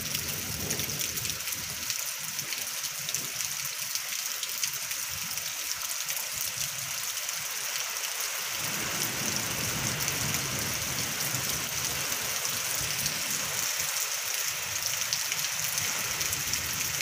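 Heavy rain falling steadily on fields and trees, with the wind gusting harder about halfway through and adding a low rumble.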